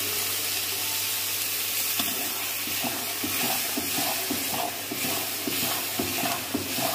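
Masala sizzling in a hot kadai as water is added because the masala has begun to stick, with a steady frying hiss. From about two seconds in, a ladle stirs and scrapes against the pan in short strokes roughly twice a second.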